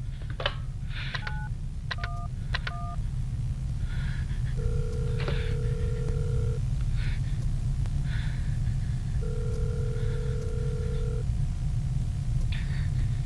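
Telephone keypad tones dialing three digits, whose tone pairs match 9-1-1, followed by the ringback tone of the call ringing out: two steady two-second rings with a pause between.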